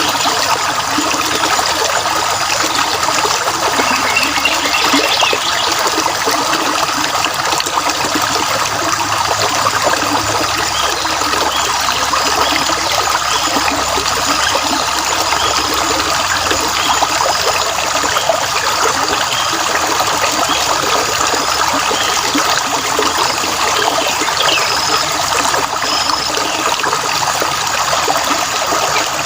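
Stream water trickling and running steadily, with brief bird chirps here and there.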